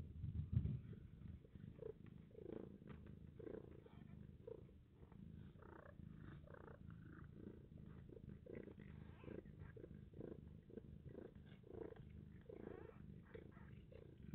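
Faint, steady purring from a mother cat as she licks her newborn kitten clean just after its birth.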